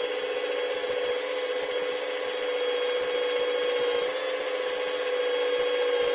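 Electric drill running steadily at low speed, its bit cutting through the magnetic adhesive sheet on a 3D printer bed plate, with an even motor hum.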